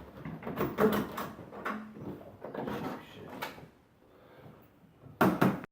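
Hand hacksaw cutting through a pipe, a run of uneven rasping strokes about two a second, then two loud strokes near the end.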